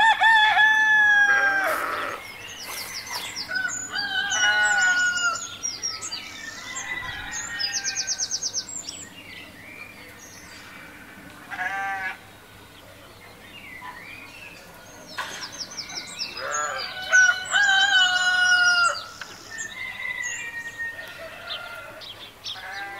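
Rooster crowing: a long call at the start and another about three-quarters of the way through, with shorter clucking and chirping calls in between.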